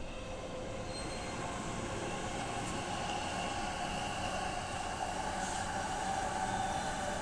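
Sky-blue-striped JR E233-series electric commuter train running past on the tracks: a steady rush of wheels on rails, growing a little louder near the end.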